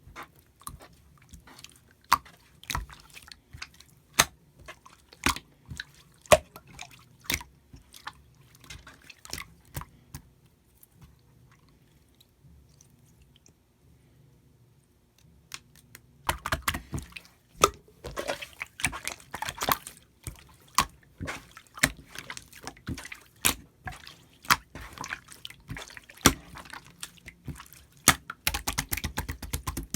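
Slime being squished and poked by hand, giving sharp sticky clicks and wet squelches at irregular intervals. The clicks thin out for a few seconds in the middle, then come thick and fast through the second half.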